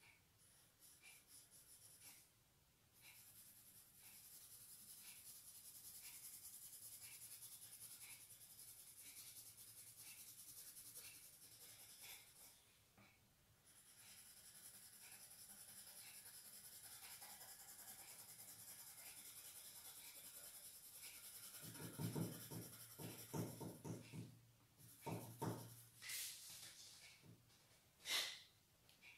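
Pencil scratching steadily on paper coated with wax crayon as a tree silhouette is shaded in, with a brief pause about halfway. Near the end the scratching stops, a run of soft knocks follows, and then a single sharp click.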